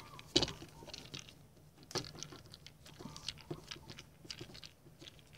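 Faint, irregular clicks, taps and rustles of a cane fishing pole being turned by hand on a wooden table to wind fishing line around it, with a sharper knock about half a second in.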